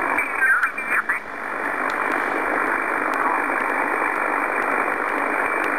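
Amateur radio transceiver in upper sideband being tuned across the 15-metre band: a steady hiss of band noise squeezed into the receiver's narrow audio passband. In the first second there are brief garbled snatches of off-tune sideband voice.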